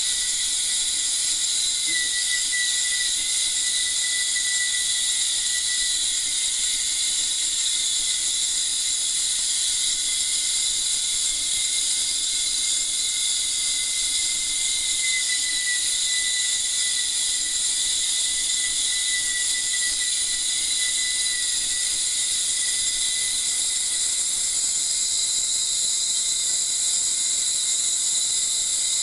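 Ultrasonic transducer running in liquid to break up wax, heard as a steady high-pitched hiss of cavitation with a faint whistling tone through it.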